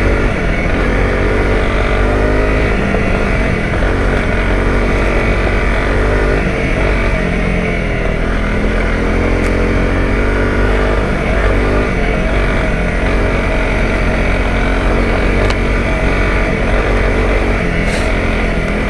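Honda CRF250 Rally's single-cylinder four-stroke engine running at low speed off-road, its revs rising and falling again and again with the throttle.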